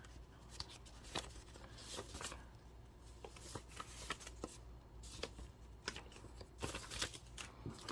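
Cash envelopes and a budget wallet being handled: faint paper rustling with scattered light taps and clicks.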